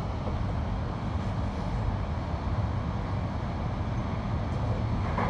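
Electric suburban train running, a steady rumble of wheels on rail and running gear heard from inside the carriage as it pulls out of the station.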